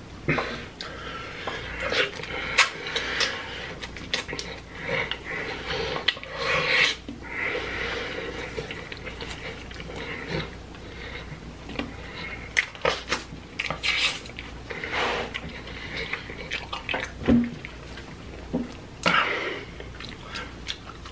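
Close-miked eating of cheesy stuffed deep-dish pizza: wet chewing, lip smacks and mouth clicks, in irregular bursts.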